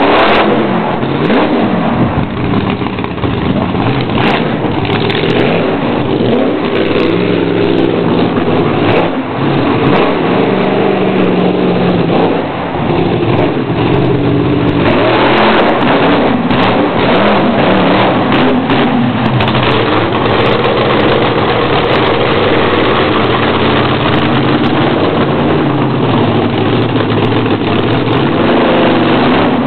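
Monster truck engine revving hard again and again, its pitch climbing and dropping, with a few short sharp knocks in the middle.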